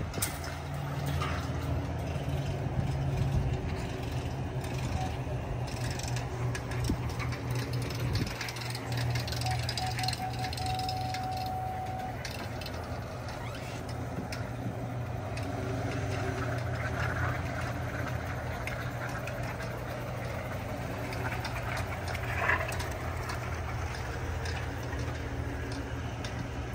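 Pickup truck engine idling steadily, a low even hum. A short sharp noise stands out about three-quarters of the way through.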